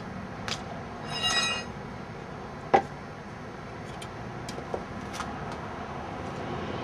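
Small metal objects being handled: light clicks and taps, a brief metallic ring about a second in, and one sharper knock a little before three seconds.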